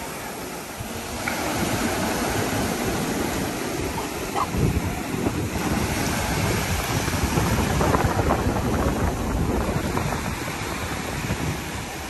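Surf breaking and washing up a sandy, pebbly beach, with wind buffeting the microphone; the sound grows louder about a second in.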